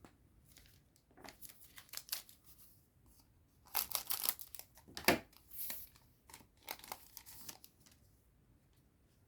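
A booster pack's foil wrapper being torn open and crinkled, in several crackly spells, loudest about five seconds in.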